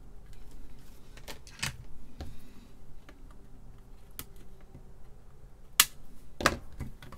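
Flush-cut side cutters snipping the excess component leads on the back of a circuit board: several separate sharp clicks a second or more apart.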